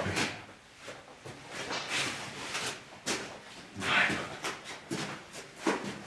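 Scattered scuffs, rustles and light knocks of someone moving about in a small concrete room, with a short hissing rustle about two seconds in and a louder one about four seconds in.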